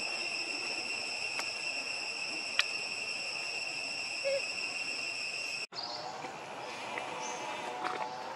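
Insects droning steadily in a high, even tone, which cuts off abruptly about two-thirds of the way through. After that there is a softer outdoor background with a few faint chirps.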